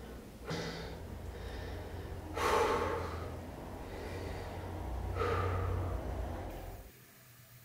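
A man gasping and breathing hard in pain while treating a foot blister: three sharp breaths, the loudest about two and a half seconds in.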